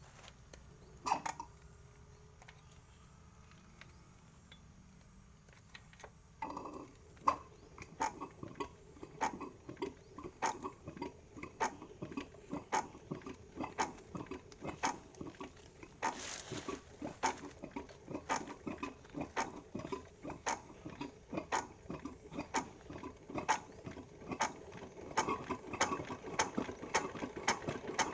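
Flood-soaked dompeng single-cylinder diesel engine turning over with a regular mechanical knocking that sets in a few seconds in and grows faster and louder toward the end as it begins to run, with a short hiss midway.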